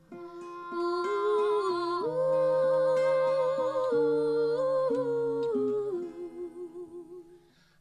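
Female vocal group singing long, wordless close-harmony notes over acoustic guitar, swelling about a second in, with vibrato as the chord fades near the end.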